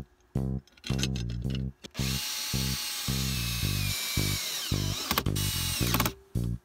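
Makita 18 V cordless drill running for about four seconds, starting about two seconds in. Its motor whine drops in pitch as it slows and stops. Plucked-guitar background music plays throughout.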